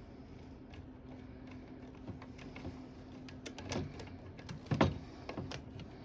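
Aluminum window parts and hand tools being handled during reassembly: scattered clicks and knocks, the loudest about four and five seconds in, over a steady low hum.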